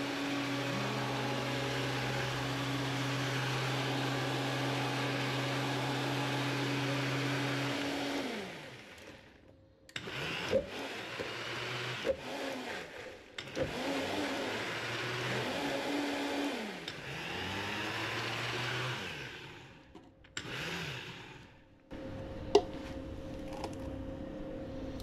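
Countertop Vitamix blender motor blending a chocolate drink. It runs steadily, then winds down about eight seconds in. It starts again about ten seconds in, its pitch rising and falling as the speed changes, and stops near twenty seconds in after one more short burst.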